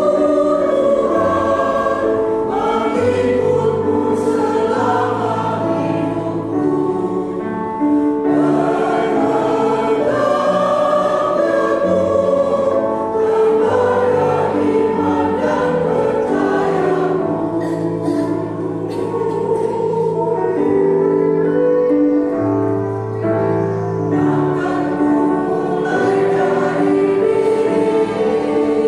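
A mixed choir of older men and women singing a hymn in Indonesian in several voice parts, with long held notes.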